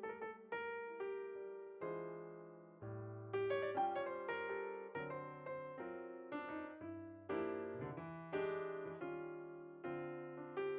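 Slow, gentle piano music: single notes and soft chords struck one after another, each fading away before the next.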